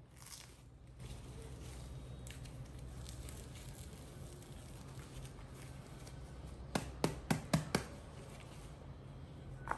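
Handling noises from a disposable diaper being fitted on a baby monkey: faint rustling, then a quick run of five sharp clicks about seven seconds in and one more near the end, over a steady low hum.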